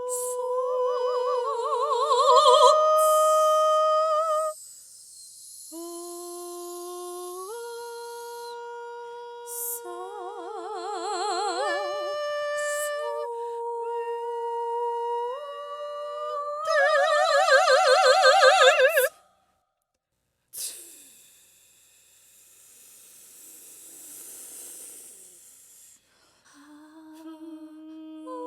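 Two sopranos singing long held notes in harmony, moving in steps from note to note, with swells of wide vibrato. Between phrases there is breathy hissing, and the sound stops briefly about two-thirds of the way through.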